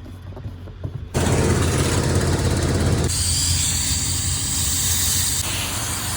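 A sudden loud rush of compressed air starts about a second in. It has a low rumble under it for its first two seconds, then thins to a steady high hiss.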